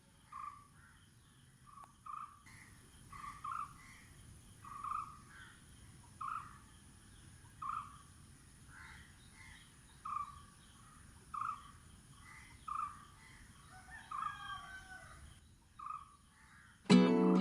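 A bird calling with short, harsh-sounding calls repeated every second or so; guitar music comes in right at the end.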